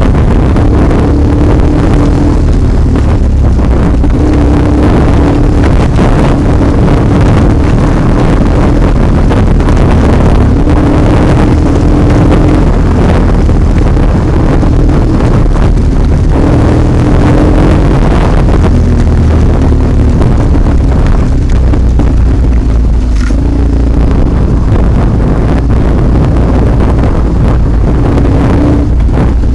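BMW HP2's boxer-twin engine running on a bumpy dirt track, its note rising and falling a little with the throttle, with heavy wind noise on the microphone.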